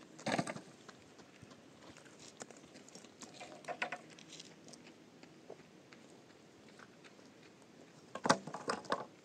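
Loose rubble stones knocking and clattering as they are handled and moved: a brief clatter about a third of a second in, a few lighter knocks near four seconds, and the loudest sharp knocks and clatter near the end.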